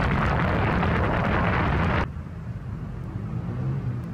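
Heavy haulage truck passing close by: loud engine and tyre noise that cuts off abruptly about two seconds in, leaving a quieter low engine rumble of traffic.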